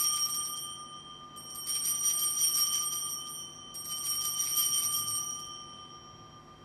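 Altar (Sanctus) bells rung at the elevation of the consecrated host: a bright jangling ring fading from the first shake, then two more shakes about a second and a half in and about four seconds in, each dying away.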